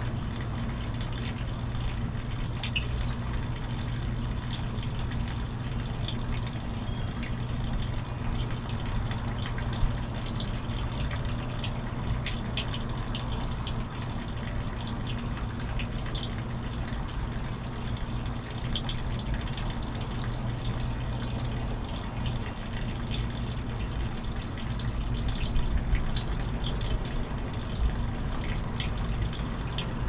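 Steady running water over a low steady hum, with faint, short high chirps from finches scattered throughout.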